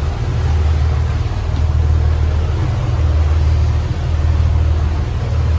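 The boat's Volvo Penta inboard engine running steadily underway: a low, even drone that swells slightly every second or two. It is running again after a corroded connection that had put it into limp-home mode was cleaned.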